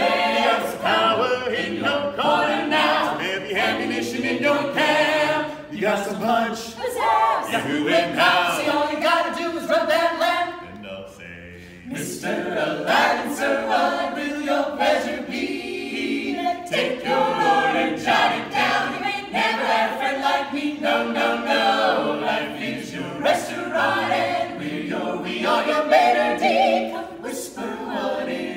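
A mixed men's and women's a cappella ensemble singing together, with a short break about ten and a half seconds in before the singing picks up again.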